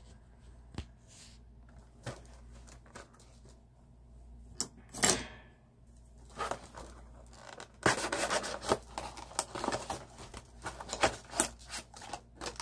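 Packaged diecast model cars being handled: plastic blister packs and card backings rubbing, crinkling and clicking. There are scattered clicks at first, a longer scrape about five seconds in, and busier crinkling in the second half.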